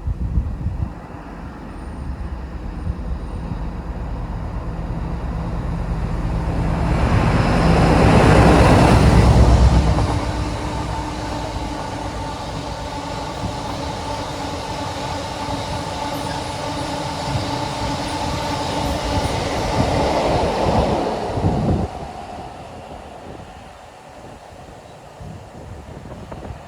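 A diesel-hauled train passing at close range. The locomotive's engine builds to its loudest about eight to ten seconds in, then the rest of the train rolls by with a steady wheel squeal, and the sound drops away sharply about three-quarters of the way through.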